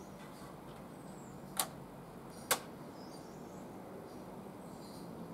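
Two sharp clicks about a second apart from a portable CD player being operated by hand, as it is made to try again at a track it will not play. Faint steady background noise underneath.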